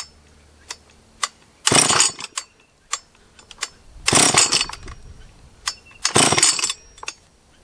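Rebuilt Husqvarna 44 chainsaw making three short, loud bursts about two seconds apart, with little but small clicks between them; it will not take any throttle. The owner suspects a lower-end vacuum leak.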